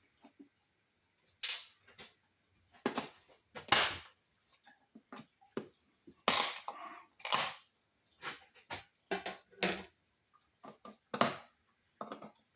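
Sharp clicks and knocks at irregular intervals, a dozen or so, the loudest about 1.5, 4, 6 and 7 seconds in: tools and hardware being handled while opening up a wall outlet.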